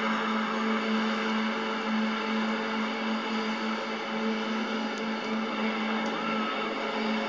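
Large crowd screaming and cheering without a break, heard through a television speaker, with a steady hum underneath.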